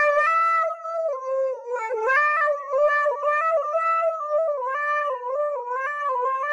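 Siberian husky howling in one long unbroken tone, its pitch wavering and stepping up and down, into a handheld karaoke microphone.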